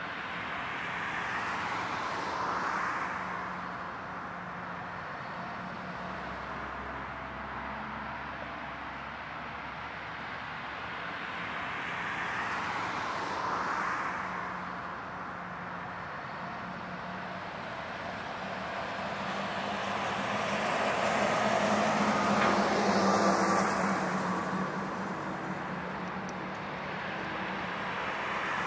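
Four-engine Boeing 747 jet engines running as the jumbo rolls down a wet runway under power, throwing spray; a steady rumble that swells now and then and is loudest about two-thirds of the way through, where a high engine whine comes in.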